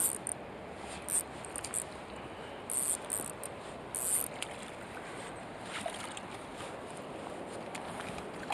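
Ultralight spinning reel clicking in several short spurts in the first half as a hooked trout is reeled in, over the steady rush of the flowing river.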